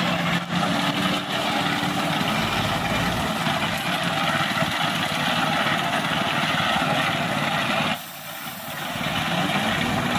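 Steady engine-like running noise that dips sharply about eight seconds in and comes back within a second.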